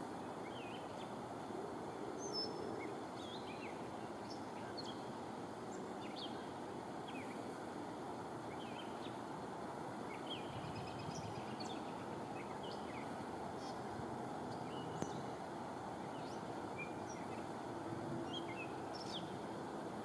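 Evening outdoor ambience: a steady low rush of distant traffic, with many short bird chirps scattered through it. No thunder is heard.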